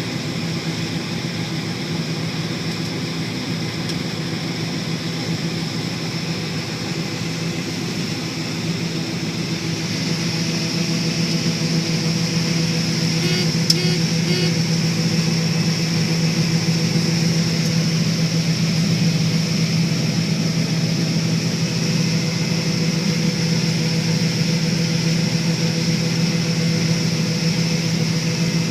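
John Deere 9560 combine running steadily under load while harvesting corn: a constant machinery drone with a high whine, growing a little louder about a third of the way in. A short run of beeps sounds about halfway through.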